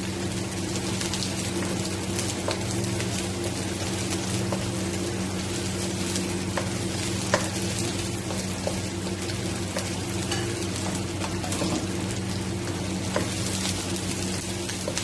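Cubed onion and capsicum sizzling in hot oil in a pan while being stirred and sautéed, with scattered clicks of the stirring utensil against the pan, one sharper knock about seven seconds in. A steady low hum runs underneath.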